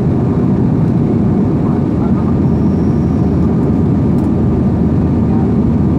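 Steady cabin noise of a jet airliner in flight: the even, deep roar of the engines and rushing air heard from inside the cabin.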